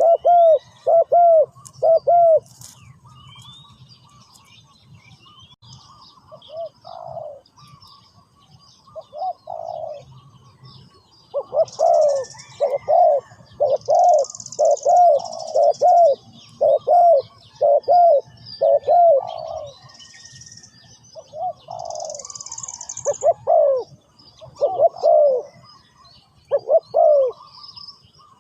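Spotted dove cooing: short, arched coo notes repeated in runs of about one a second, loudest in a long series from about a third of the way in. Small birds chirp faintly in the background.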